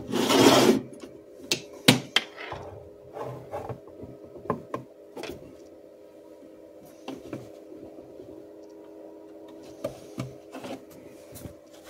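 Handling of a small metal external speaker enclosure: a scrape in the first second as its sheet-metal cover is slid home, then a sharp click and scattered knocks and taps as it is set down and positioned. A faint steady hum runs underneath.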